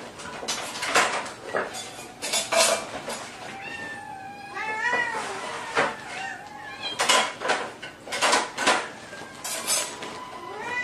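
Several kittens mewing in high, wavering calls, with repeated sharp metallic clinks and clatter from a tin can being handled.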